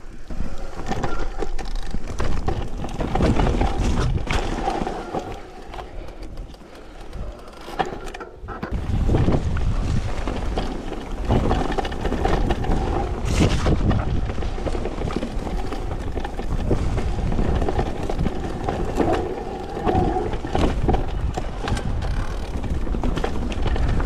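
Electric mountain bike ridden down a dirt forest trail: tyres rumbling over earth, leaves and twigs, the bike rattling over bumps, with wind on the microphone. It eases off for a moment about a third of the way in, then gets louder again.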